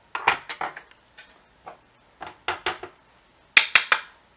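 Hard clicks and clacks of a mirror and plastic makeup cases being handled and set down, scattered through, with a quick run of three louder clacks about three and a half seconds in.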